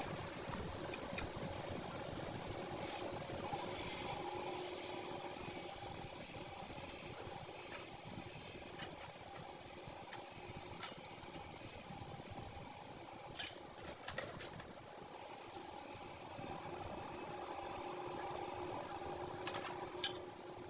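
Hand tools and metal parts being handled: scattered clicks and knocks, a few close together about thirteen to fifteen seconds in, over a steady machine hum and hiss.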